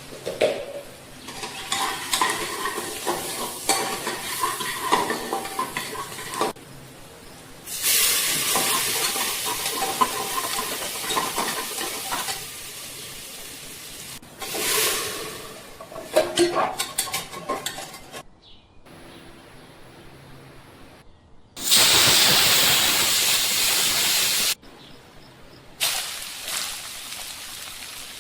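Kitchen cooking sounds: food sizzling in a pan, with utensils stirring and clinking against cookware, in short clips cut abruptly one after another.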